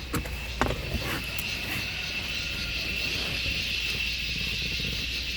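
A few clicks and light knocks as a Velcro seat belt shoulder pad is handled and pulled off the belt, over a steady high hiss with a thin whine.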